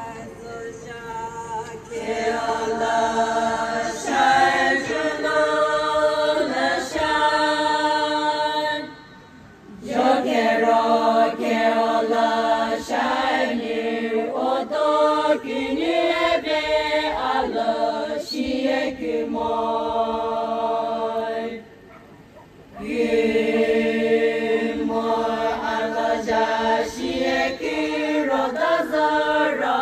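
A group of voices chanting in unison without instruments, in long phrases of held notes, with two short breaks for breath about nine and twenty-two seconds in.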